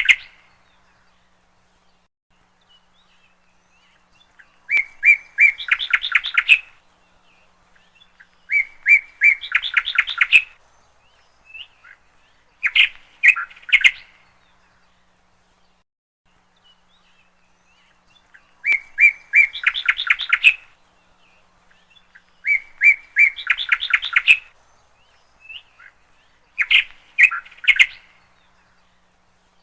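Bird song: six repeated phrases a few seconds apart, each a few clear chirps followed by a fast, higher trill, with quiet gaps between them.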